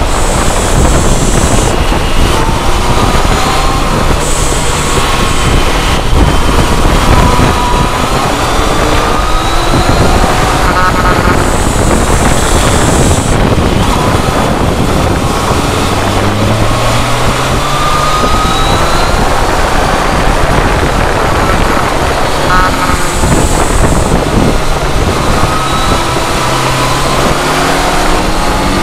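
Strong wind rush on the microphone of a camera mounted on a moving sport motorcycle. Under the wind, the bike's inline-four engine note rises and falls as it speeds up and slows.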